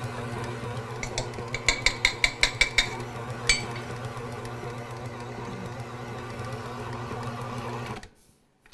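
Smeg 5-quart, 600-watt stand mixer running steadily with a low hum, its beater working a sticky bread dough that spins round with it. The mixer is switched off near the end and cuts out abruptly. About a second in comes a quick run of light metal clinks from measuring cups being handled.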